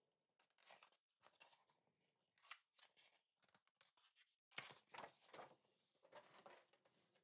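Faint rustling and crinkling of large artbook pages being handled and turned, in irregular strokes that are loudest a little past the middle.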